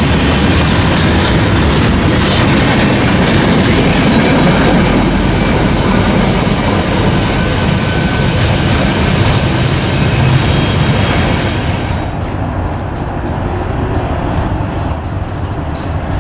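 A train rolling past close by, its wheels clacking on the rails. About twelve seconds in, the hissing upper part of the noise drops away and the rumble eases.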